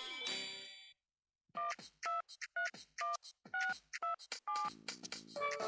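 Chicco toy telephone playing a quick run of about ten short touch-tone dialing beeps, each one two tones sounding together. A jingle fades out at the start and another begins near the end.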